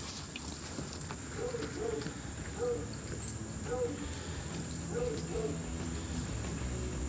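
Crickets chirring steadily in a high, thin drone, with a handful of short low-pitched calls scattered through the middle.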